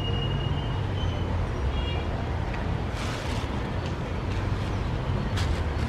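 Steady low rumble of road traffic, with a few faint, short, high bird chirps in the first two seconds.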